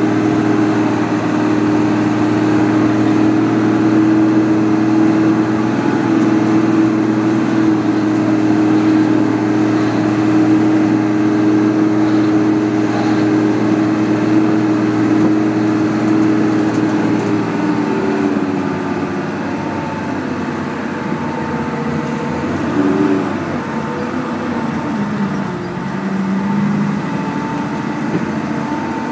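A vehicle engine heard from inside the cabin while driving a wet road, over a steady hiss of tyres and rain. The engine note holds steady, then shifts and wavers from about 18 seconds in as the vehicle slows and works through bends.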